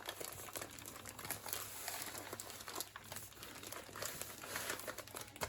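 Baking paper crinkling and rustling steadily as a sheet of sponge cake is rolled up in it by hand.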